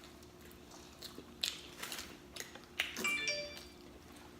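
Soft mouth smacks and clicks of eating. About three seconds in, a short electronic chime of several clear steady tones, like a doorbell, rings for about half a second.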